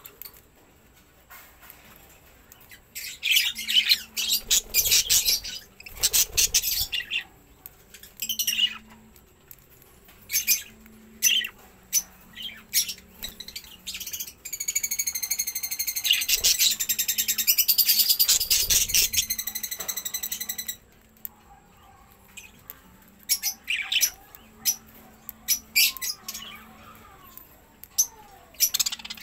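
Budgerigars chirping in short high bursts, with a long run of continuous warbling chatter from about 14 to 21 seconds in.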